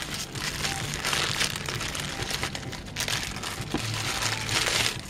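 Clear plastic bag crinkling as hands handle it and pull it open, louder about a second in, around three seconds and again near the end.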